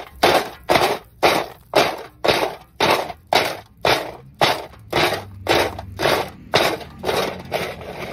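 Hard roasted lumps of multani mitti (fuller's earth) clattering in a steel plate as it is tossed back and forth in a steady rhythm, about two rattling strokes a second.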